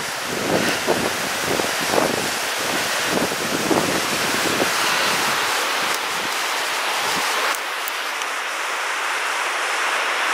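River Lyn rushing over boulders, a steady loud hiss of flowing water. Irregular low thumps sit under it and stop about seven and a half seconds in.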